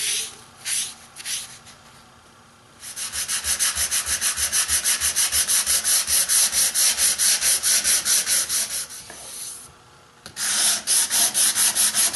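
Sandpaper rubbed by hand over burled ash wood veneer in quick, even back-and-forth strokes, about five a second. The strokes stop for under a second near the end and then start again. A few slower rubbing strokes come at the very start.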